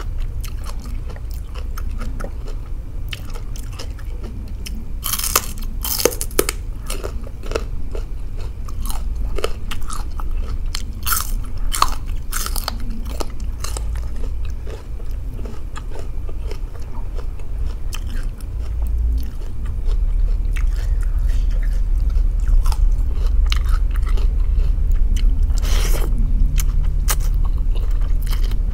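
Close-miked eating of khanom chin rice noodles in pla ra sauce, taken by hand: wet chewing and slurping with irregular crunchy clicks and smacks. A steady low hum runs underneath.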